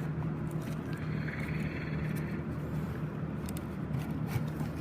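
Steady low hum under faint rustling, with a soft hiss from about one to two seconds in.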